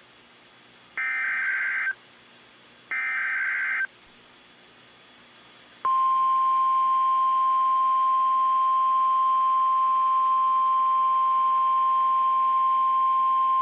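NOAA Weather Radio emergency alert: two short bursts of SAME header data, each a buzzing two-pitch warble about a second long, two seconds apart. About six seconds in, the steady single-pitch 1050 Hz warning alarm tone begins and holds. Together they announce a practice test tornado warning.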